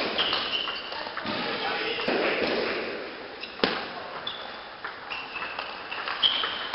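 Table tennis rally: the ball clicks sharply off the rackets and the table at irregular intervals, with short high squeaks of the players' shoes on the hall floor.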